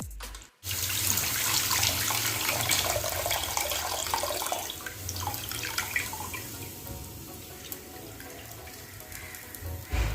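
Tamarind water being poured into a cooking pot, a steady liquid splash that is strongest for the first few seconds and then tapers off as the pour ends. A dull thump comes near the end.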